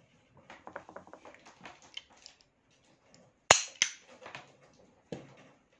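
Kimar pistol's metal mechanism being handled: a run of small clicks and rattles, then two sharp, loud clacks about a third of a second apart, and a lighter click near the end.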